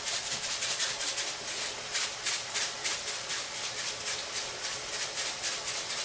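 Seasoning being shaken from a spice bottle over a frying pan: the grains rattle in quick, even strokes, about four a second.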